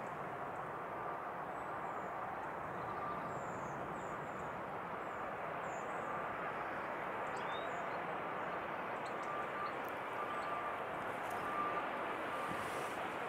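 Steady rushing engine noise of a Boeing 787-8 Dreamliner on final approach, slowly growing louder as the airliner comes in to land. Faint bird chirps a few seconds in.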